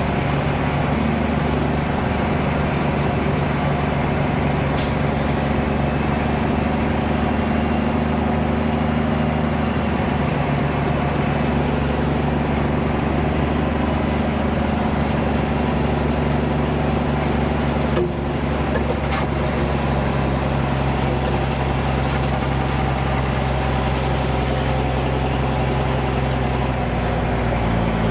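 Dump truck's diesel engine running steadily, its pitch shifting a little partway through and again near the end, with one click about eighteen seconds in.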